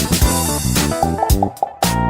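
Upbeat background music with guitar and bass and a steady beat.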